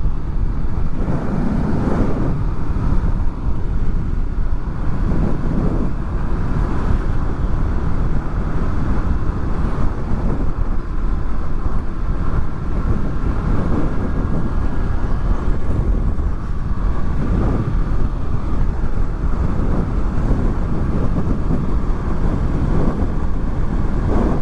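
Wind rushing and buffeting over microphones covered by furry windshields, with the Honda VFR800's V4 engine running steadily underneath at riding speed.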